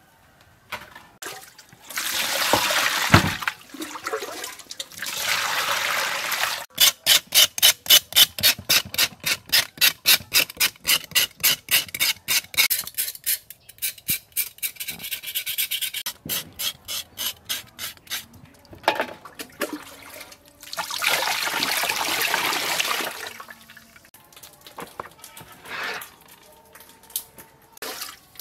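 A knife scraping the charred skin of a fire-grilled cow leg in an aluminium bowl: a long run of even rasping strokes, about three a second. Before and after the strokes come a few seconds of steady rushing noise.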